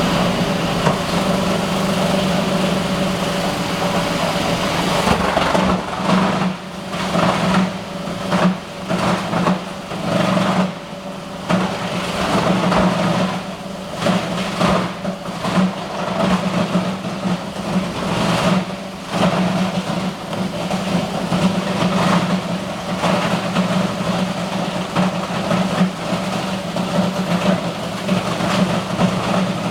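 Plastic grinder running with a steady motor hum; from about five seconds in, irregular loud bursts of grinding noise come and go as material is ground.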